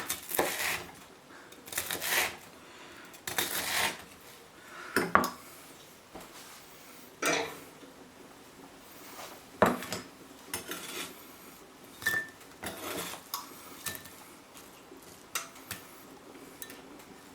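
Knife cutting a crisp fried slice of wholemeal bread into croutons: a series of separate crunching cuts and knocks, roughly one every one to two seconds, with short pauses between.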